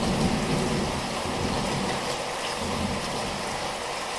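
Steady rain falling, an even hiss with an irregular low rumble beneath it.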